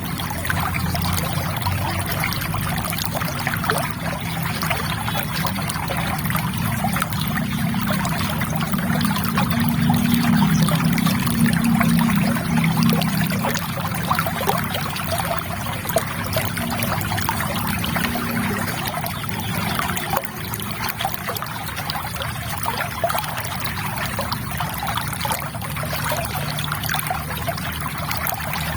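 River water trickling in a steady, continuous flow, with a deeper burble swelling for a few seconds about a third of the way in.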